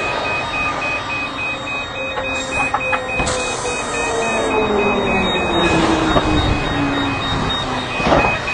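Loud noise on the airport apron. Through it, a whine slowly falls in pitch over several seconds, like a jet engine winding down, while a high electronic beep repeats evenly throughout.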